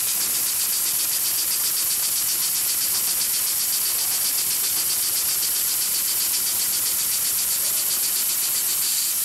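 HIGHTEX 728-30P heavy-duty long-arm triple-feed sewing machine with puller feed running steadily, stitching through thick multi-layer canvas webbing: a loud, even hissing clatter with a fast regular stitch rhythm.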